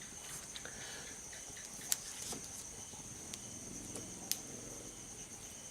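A steady, high-pitched insect trill, like crickets, runs under the quiet, with a couple of sharp clicks about two and four seconds in.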